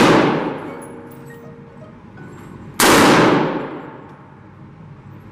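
AR-15-style rifle shots echoing in an indoor range: the long ringing tail of one shot dies away, then a second shot cracks out a little under three seconds in and rings off slowly along the concrete lane.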